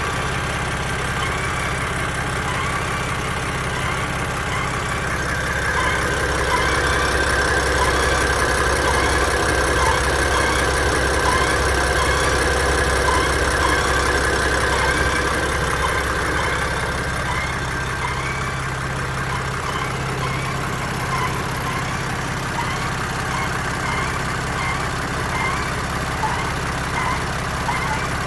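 BMW F80 M3's twin-turbo inline-six idling warm, with a steady high whine over the engine note. The whine swells about six seconds in and eases off again about ten seconds later.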